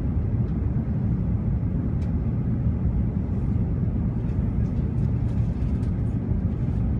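Steady low rumble of airflow and engines inside the upper-deck cabin of an Airbus A380 in flight.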